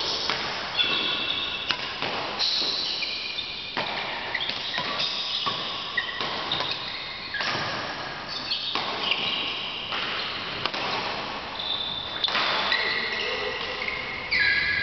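Badminton play on an indoor court: sharp racket strikes on the shuttlecock about every second or two, mixed with many short high squeaks of court shoes on the floor.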